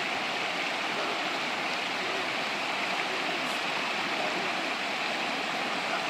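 Shallow rocky river rushing steadily over small cascades and rapids, an even hiss of flowing water.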